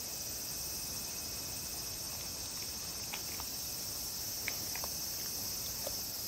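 A dog eating small pieces of tofu and potato off a wooden cutting board: a few faint clicks and smacks of its mouth taking food, over a steady high background hiss.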